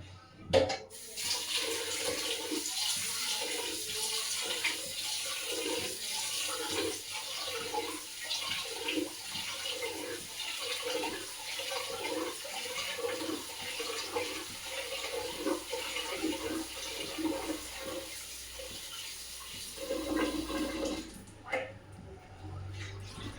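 Tap water running into a pressure cooker pot while rice is rinsed by hand, with a rhythmic swishing of the grains about every three-quarters of a second; a knock just before the water starts, and the water stops near the end.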